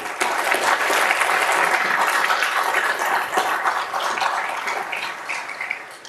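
Audience applauding, dense and steady, then dying away near the end.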